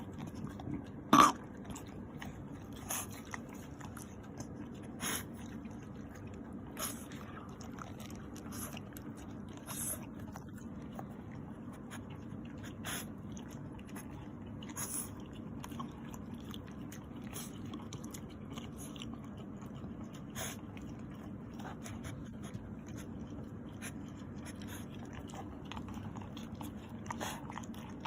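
French bulldog eating cake: irregular wet smacking and chewing sounds, a second or so apart, with one much louder smack about a second in.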